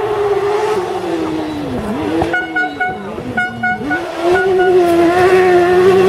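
Off-road rally buggy's engine at speed: the revs drop and pick up twice near the middle, then the engine pulls hard and louder as the buggy slides through a gravel corner.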